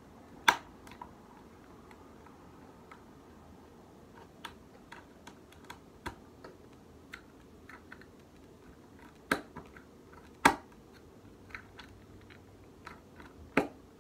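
Irregular light clicks and taps of a small hand tool turning a screw into a plastic litter box rim, with a few sharper knocks: one about half a second in, two around nine and ten seconds, and one near the end.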